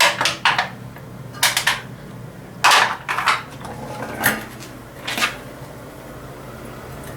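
Metal clinking and clattering in about five short bursts, roughly a second apart, as the cylinder head and its parts are handled during cleaning.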